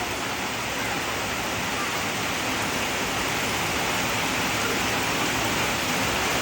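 Chicken deep-frying in hot oil: a steady, even sizzle.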